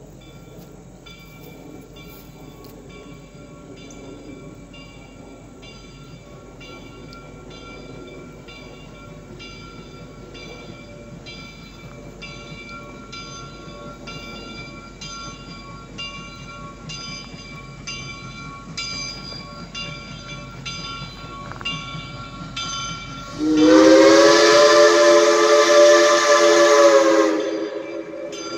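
Grade-crossing signal bell dinging about one and a half times a second over the rising rumble of Reading & Northern 425, a 1928 Baldwin steam locomotive, drawing near. About 23 seconds in, the locomotive's steam whistle sounds one long blast of about four seconds, much louder than the bell.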